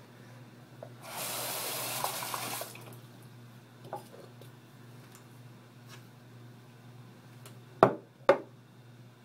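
Bathroom sink faucet turned on briefly, running water with a rushing hiss for about a second and a half before it is shut off. Near the end come two sharp knocks about half a second apart, the loudest sounds.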